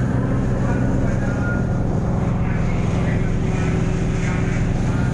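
Engines of the passenger ship KM Barcelona IIIA running at cruising speed of up to 18 knots, a steady low drone heard from the open deck with a rushing noise over it.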